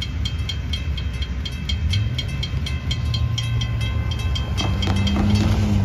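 Railroad crossing bell ringing at about four strikes a second while the gate arms rise after the train has cleared, stopping near the end. Underneath, the hum of cars and a pickup driving over the crossing grows louder.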